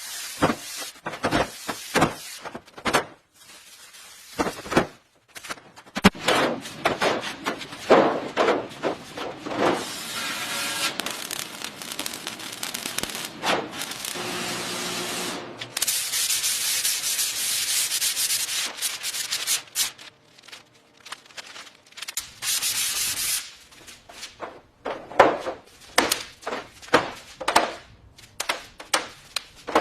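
Sanding by hand: irregular rubbing strokes back and forth, with two stretches of steady hiss around the middle.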